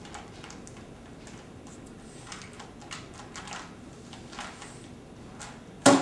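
Rubik's cube being turned quickly: a run of small plastic clicks and rattles as the layers are twisted. Near the end comes a single loud slap as the hands come down on the speed-cubing timer mat to stop the clock.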